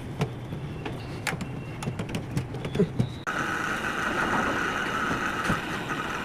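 Air conditioner running: a low steady hum with scattered clicks, then, a little after three seconds in, a louder, higher whirring with a steady whine cuts in abruptly.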